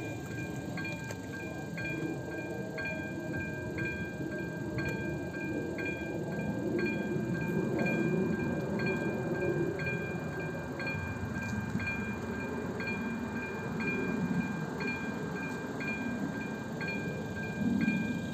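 Level-crossing warning bell of an AŽD 97 signal ringing in a steady, even pattern of about two strikes a second over a constant high tone, sounding while the crossing is closed for an approaching train. A low engine or traffic rumble swells and fades underneath.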